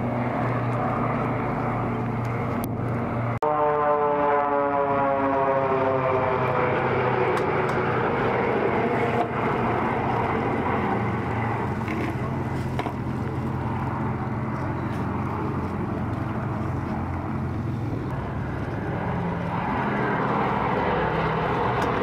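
Piston aero engines of a B-17 Flying Fortress and its escorting fighters flying past in a steady drone. About three and a half seconds in the sound breaks off abruptly, then the pitch falls over a few seconds as an aircraft passes, and the drone grows again near the end.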